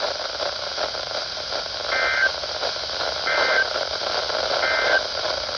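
Three short two-tone data bursts of the NOAA Weather Radio SAME (Specific Area Message Encoding) end-of-message code, evenly spaced about a second apart, over steady radio static and hiss. The bursts signal the end of the alert message.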